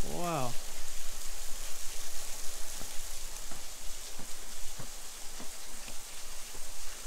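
Steady hiss of rushing water from the waterfall stream, with soft footsteps on the path about every two-thirds of a second; a short falling hum of a person's voice at the very start.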